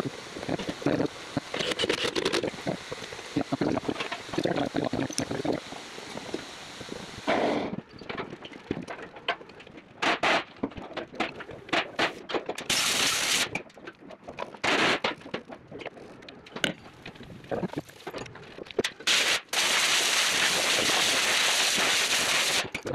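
Hand ratchet and wrench working hose clamp bolts: scattered clicks and metal knocks. A short burst of steady hiss comes about halfway through, and a longer one of about three seconds near the end.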